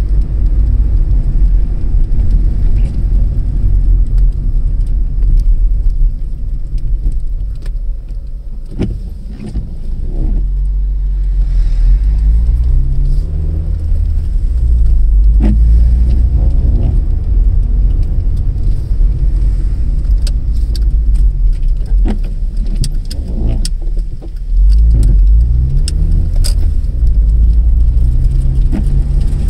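Car engine and road noise heard from inside the cabin: a low rumble that dips as the car slows about eight seconds in and again near twenty-four seconds, each time followed by the engine pitch rising as it accelerates. Occasional sharp knocks and rattles.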